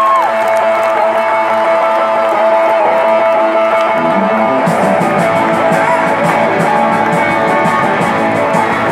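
Live rock band playing loudly in an arena: an electric guitar holds long, slightly bending notes, then drums and bass come in about four seconds in and the full band plays on.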